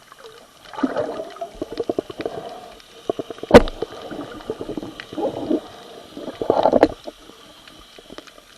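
Water gurgling and bubbling as heard through an underwater camera, in irregular bursts with fine crackling ticks. A single sharp knock about three and a half seconds in is the loudest sound.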